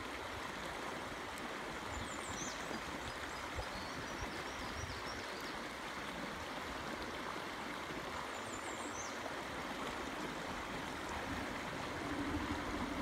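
Stream water flowing steadily over a shallow, rippled trout run. Faint high chirps sound twice, and a low steady hum comes in near the end.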